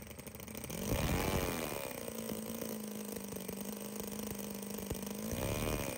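SEMTO ST-NF2 7cc two-cylinder four-stroke nitro model engine running, revving up and back down about a second in. It then holds a steady running note and revs up and down again near the end.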